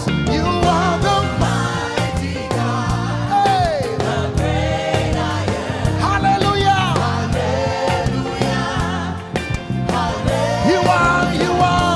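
Live gospel worship band playing: drums, bass and keyboard chords under a singer holding long, bending notes.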